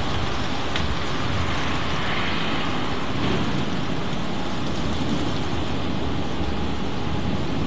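Steady rush of wind and rain in a thunderstorm, with a low rumble throughout.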